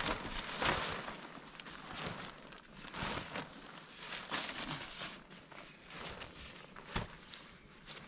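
A tarp rustling as it is handled and tucked under, with footsteps on the forest floor and one sharp knock about seven seconds in.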